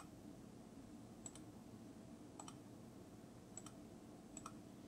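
Near silence with a few faint computer mouse clicks, about one a second.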